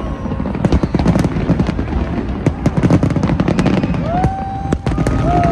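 Fireworks display: a dense run of crackling pops and bangs. About four seconds in, a held rising tone joins them.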